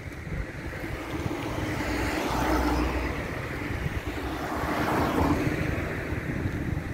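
Outdoor street noise: traffic sound swelling twice, with wind rumbling on the microphone.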